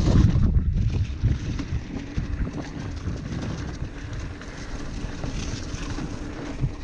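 Wind buffeting the microphone over the rumble of a mountain bike's tyres rolling on a dirt trail, loud and rough in the first second, then settling into a steadier, quieter rush.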